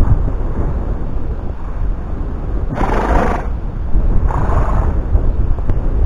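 Wind buffeting a helmet camera's microphone, a steady low rumble, with two louder rushes of noise about three and four and a half seconds in.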